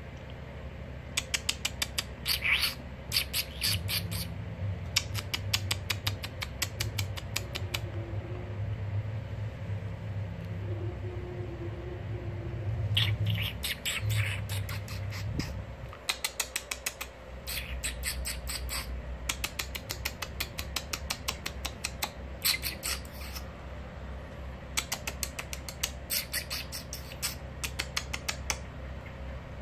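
Eurasian blackbird giving its rattling alarm call: runs of sharp chack notes, about ten a second, repeated in bursts of one to three seconds. A low hum sits under the first half.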